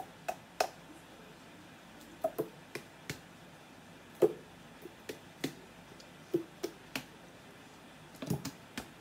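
Mayonnaise being squeezed from a plastic squeeze bottle onto macaroni salad: irregular short squirts, squelches and clicks as the bottle is pressed.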